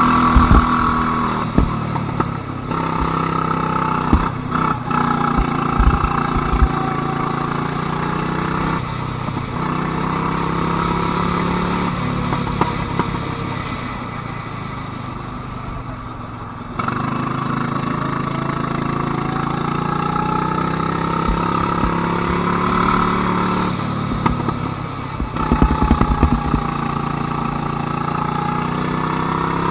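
Go-kart engine running on track, its pitch rising and falling with speed, with a few low knocks and thumps along the way.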